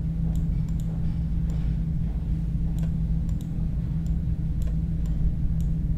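Scattered computer mouse clicks and key presses, about a dozen at irregular intervals, over a steady low hum.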